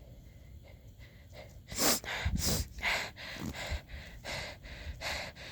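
A person breathing hard in quick, loud gasps, about two a second, starting a little under two seconds in, out of breath after falling in the snow.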